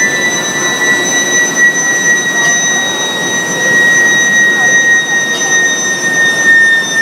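Medium-frequency induction billet heater whining: a steady high-pitched tone with fainter overtones that sinks slightly in pitch, over a constant rushing machine noise.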